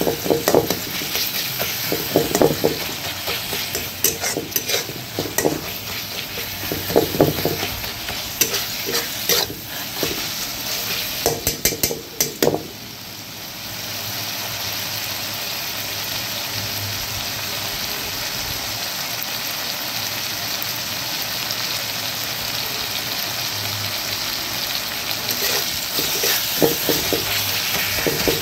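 Chopped tomatoes in spice masala sizzling in a metal kadai, scraped and stirred with a metal spatula for about the first twelve seconds. The stirring then stops and a steady sizzle goes on, and the scraping starts again near the end.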